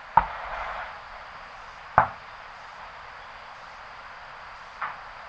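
Three separate knocks, the first two sharp and the third fainter, about two to three seconds apart; the first is followed by a brief rustle.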